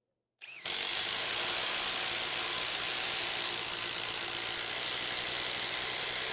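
Bosch IDH182 18 V brushless impact driver hammering steadily under load as it sinks an 8-inch TimberLOK structural screw into stacked lumber. It starts about half a second in, after a brief blip, and runs without a break.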